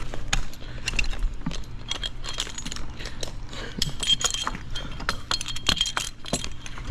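Tree climber's metal hardware, carabiners and other gear on the harness, clinking and knocking in quick, irregular clicks as he moves among the branches, with a few brief metallic rings.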